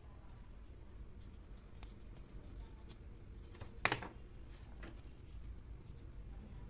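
A miniature wooden dollhouse table set down on a hard floor with a light knock about four seconds in, among a few faint clicks of small wooden pieces being handled.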